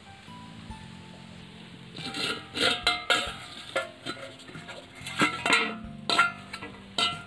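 Steel bowl used as a lid clinking and clanking against a metal cooking pan as it is handled and lifted off, a string of sharp metallic strikes with short ringing, over light background music.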